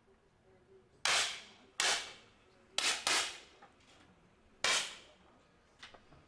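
Five 10 m air pistol shots, sharp cracks each followed by a short echoing tail: one about a second in, one near two seconds, two in quick succession near three seconds, and one near five seconds.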